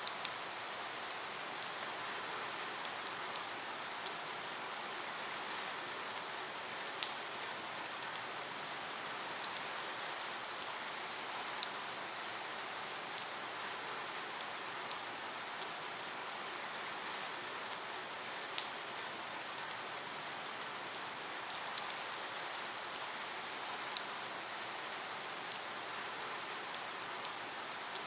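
Steady rain: an even hiss with the sharp ticks of single drops landing at irregular moments.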